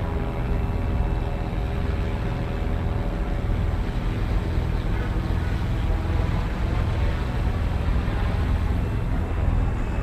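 FlyWing FW450 V2 electric RC helicopter in flight, its motor and main rotor blades making a steady whirring drone as it performs an auto-invert flip.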